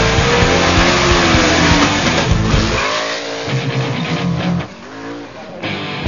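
A drag-racing car's engine revving, its pitch rising and falling in quick pulls about halfway through and again near the end.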